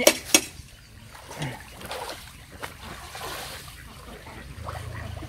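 Water splashing and trickling in a muddy, partly drained pond, with a few sharp knocks right at the start. A low steady hum comes in near the end.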